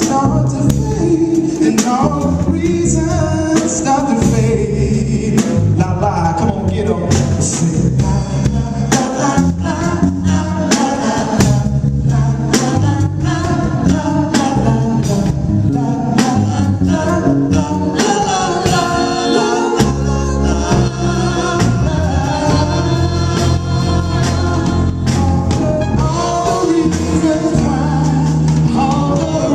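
Band music with singing: a vocalist over a band of drums, bass, keyboards and horns, with a steady beat of drum hits.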